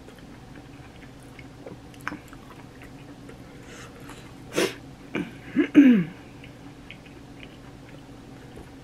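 Close-miked chewing of corn on the cob, with soft wet mouth clicks. About halfway through there is a sudden sharp breath sound, then three short throat sounds that fall in pitch; these are the loudest part.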